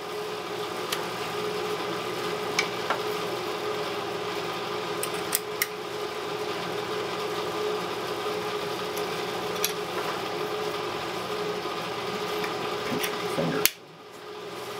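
A steady mechanical hum with one clear tone, and a few sharp light clicks of parts being handled; the hum cuts off suddenly near the end.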